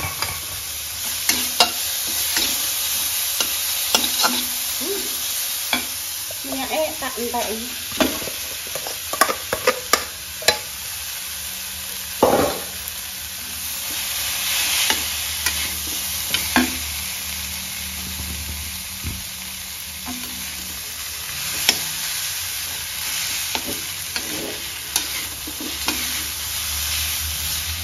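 Long metal spatula stirring and scraping rice and fried spices around an aluminium wok, with a steady sizzle of frying under frequent irregular clinks and scrapes of the spatula on the pan.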